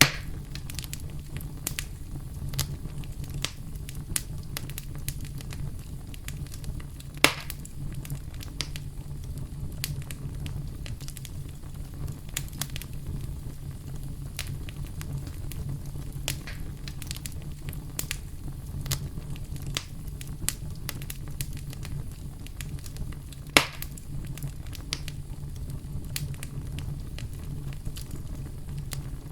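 Campfire crackling, with scattered sharp clicks and a few louder pops, over a steady low brown-noise rumble.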